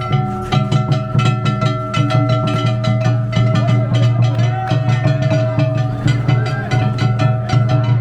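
Danjiri-bayashi festival music from a float: drums and rapid percussion strokes keep a continuous beat under several long held high notes.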